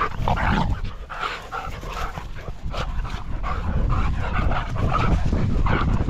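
Two dogs play-fighting, making short vocal sounds in quick repeated bursts, with low wind rumble on the microphone growing toward the end.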